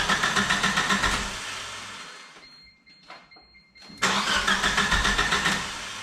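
Geo Tracker's four-cylinder engine cranking on the starter in two tries, each a second and a half or so of fast, even pulsing that then fades away without the engine settling into a run. It won't start because the distributor is out of time by a tooth or two.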